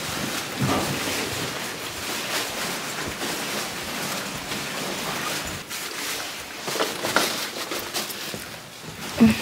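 Footsteps, rustling bags and a rolling suitcase going along a carpeted hallway, with scattered small knocks and one sharp thump near the end.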